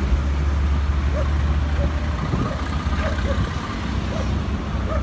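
Steady low rumble of road traffic from the highway, easing a little about two seconds in.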